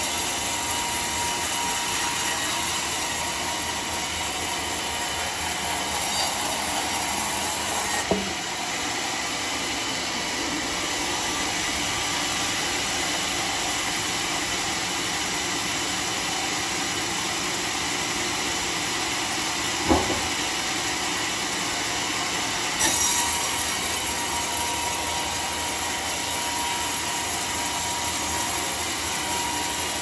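Homemade sawmill cutting along a teak log: a steady, loud run of the saw blade through the wood, with a faint steady whine and two sharp knocks along the way.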